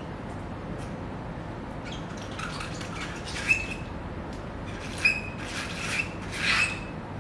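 Gloved hands rubbing and wiping as the touch-up paint kit is cleaned up: a handful of short rubbing sounds from about two seconds in, several with a brief high squeak, over a steady low room hum.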